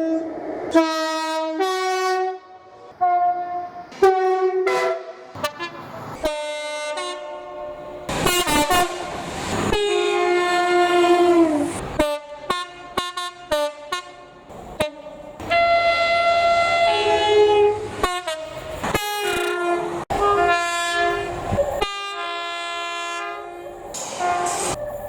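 Train horn played as a tune: a long run of short blasts at changing pitches, with a few longer held notes, notably around ten and sixteen seconds in.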